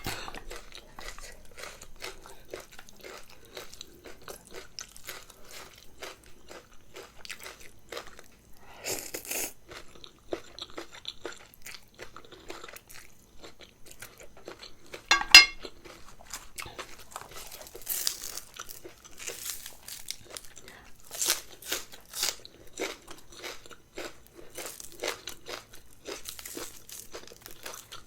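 A person chewing and crunching food close to the microphone, a steady run of wet mouth clicks and crunches, with one sharp, louder sound about halfway through.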